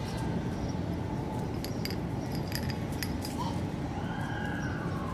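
Steady low outdoor background noise with scattered light clicks and clinks. A siren begins wailing about three and a half seconds in, its pitch sliding downward.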